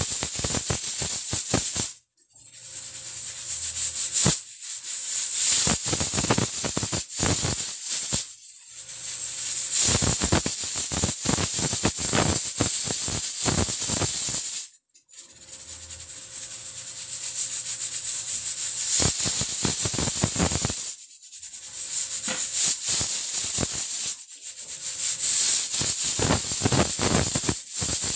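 Stovetop pressure cooker's weighted valve rocking and rattling on its vent as steam hisses out in spurts, the cooker at full pressure; the hiss and rattle break off briefly every few seconds.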